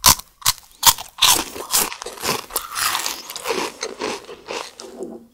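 Close-up crunching of a crisp chocolate wafer: three sharp bites in the first second, then steady crunchy chewing that eases off near the end.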